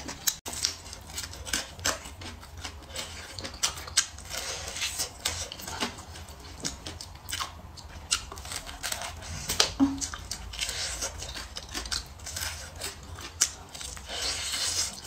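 Close-miked eating sounds: a fried chicken drumstick being bitten and chewed, its crisp breaded coating crackling in many short, sharp crunches and clicks, over a faint steady low hum.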